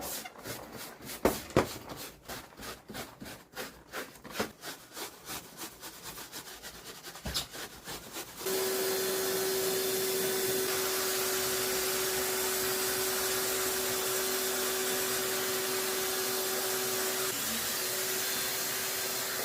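Rapid back-and-forth scrubbing strokes, about four or five a second, during cleaning of the air conditioner's parts. About eight seconds in, a steady motor-driven cleaning machine starts: a constant hiss over an even hum, which dips briefly near the end.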